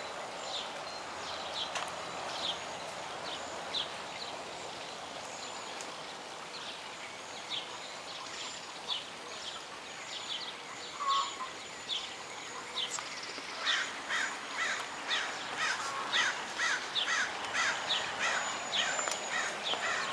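Bird calls: short, high chirps repeated at first every second or so, quickening about two-thirds of the way in to a steady run of about three a second, over a steady outdoor background hiss.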